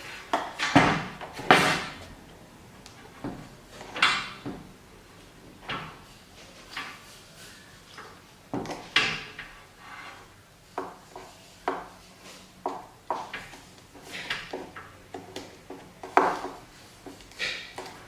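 Irregular clacks, knocks and short scrapes of hard plastic and tools being handled and worked during a plastic-weld repair of a headlight housing, with the loudest strokes in the first couple of seconds.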